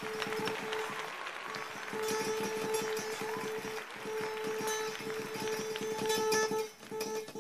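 Acoustic guitar, held flat across the player's lap, picked rapidly and repeatedly on one note, with a few brief breaks. It is a fast alternate-picking attempt that the player himself says is not working very well.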